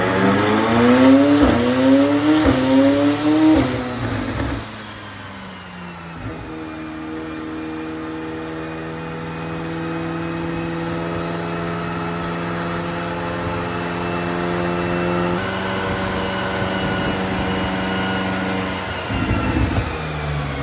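McLaren twin-turbo V8 accelerating hard through several quick upshifts, the pitch rising and dropping about four times in quick succession. It then settles into a steady note that climbs slowly.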